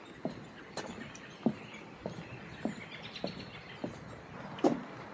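Footsteps of a person walking at a steady pace on a trail, a short thud about every half second to second.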